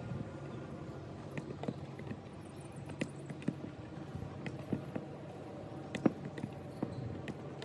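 Soccer ball being tossed up and trapped with the inside of the foot on artificial turf: a series of sharp knocks of ball on boot and turf amid footsteps, the loudest about six seconds in.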